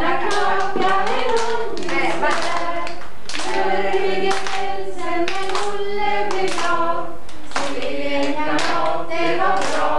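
A group of adult women singing a song together unaccompanied, with held notes, and hand claps through it at about two a second.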